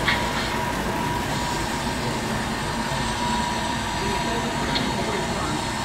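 Steady background noise of a busy exhibition hall, with a thin steady high tone and a faint click or two.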